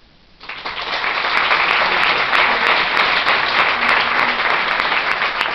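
Audience applauding: clapping starts about half a second in and quickly swells into steady, dense applause.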